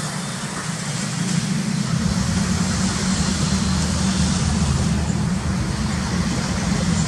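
Twin jet engines of an Airbus A320-family airliner at takeoff thrust during its takeoff roll: a steady roar, with a deep rumble coming in about two seconds in.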